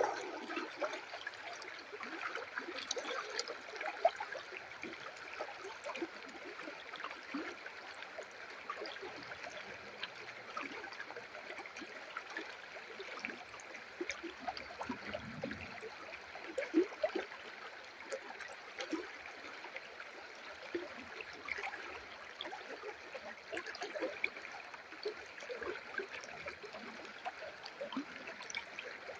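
River water flowing steadily, trickling and gurgling, with many small splashes and plinks throughout.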